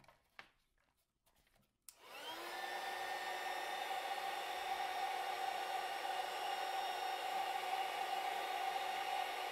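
A few light handling clicks, then a small handheld heat gun switched on about two seconds in. Its fan spins up and it blows steadily with a whine, shrinking heat-shrink tubing over the end of the cable.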